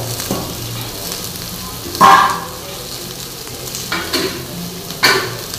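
Sliced onions sizzling steadily in hot oil in a stainless steel kadai, just after going into the pan. A loud sudden clatter comes about two seconds in and a sharp knock near the end.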